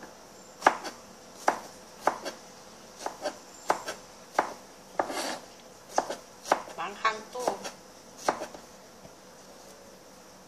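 Kitchen knife slicing a radish on a plastic cutting board: about sixteen uneven, sharp knocks of the blade on the board over roughly eight seconds, stopping shortly before the end.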